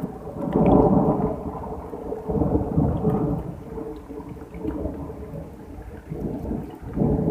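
Thunder rumbling in long rolls that swell and fade several times, loudest about a second in and again near the end, over a light drizzle of rain.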